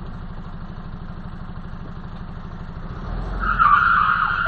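Steady low rumble of a vehicle heard from inside its cab, then about three seconds in a loud high squeal of brakes or tyres lasting over a second: a vehicle making a hard emergency stop.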